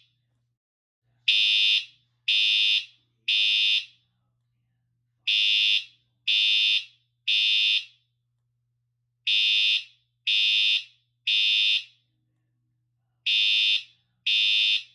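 Siemens U-MHU fire alarm sounder beeping a steady high tone in groups of three, about one beep a second with a pause of about two seconds between groups: the temporal-three evacuation pattern.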